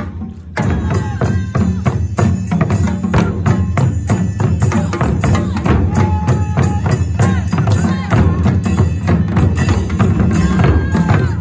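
Japanese taiko drum ensemble playing a fast, dense rhythm on shoulder-slung drums. It kicks back in after a brief drop about half a second in.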